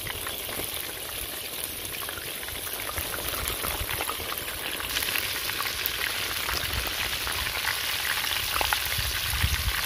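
Flour-coated boneless fish pieces deep-frying in hot oil in a clay pot: a steady, dense sizzle and crackle that turns a little brighter and louder about halfway through.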